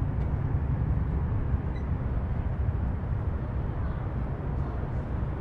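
Steady low rumble of outdoor street background noise picked up by a moving handheld camera, with no distinct events.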